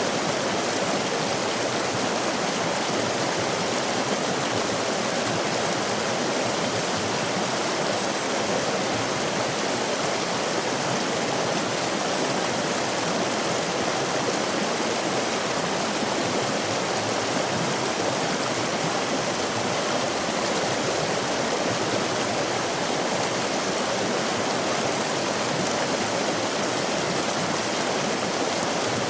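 A stream of water flowing and rushing over rocks, a steady unbroken rush with no sudden events.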